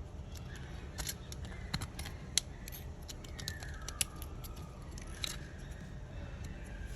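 Irregular metallic clicks and scrapes of a small hand tool picking at the brass bonnet of a Prier wall hydrant, digging out old packing.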